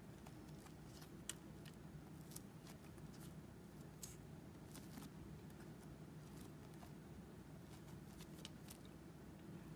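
Faint, irregular soft clicks and sticky tearing of prefermented bread dough being pulled apart by hand and dropped into a stainless steel bowl of flour, over a low steady hum.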